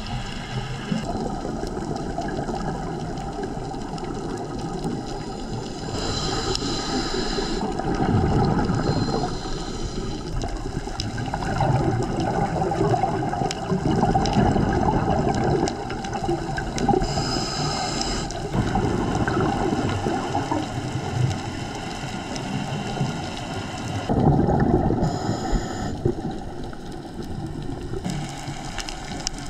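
Underwater scuba breathing through a regulator: exhaled bubbles gurgling in surges every few seconds, with a higher hiss in a few stretches between them.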